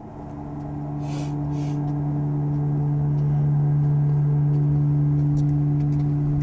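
A low, steady droning hum with a fainter tone an octave above it, swelling up over the first few seconds and then holding.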